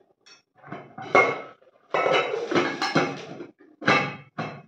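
Dishes being handled and set down on a table, clattering and clinking in a string of separate knocks with a longer run of clatter about two seconds in.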